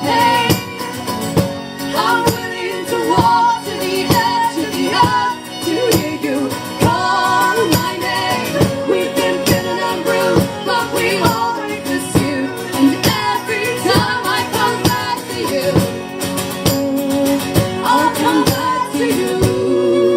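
Live performance of a folk-pop song: female singing over strummed acoustic guitar with a steady beat.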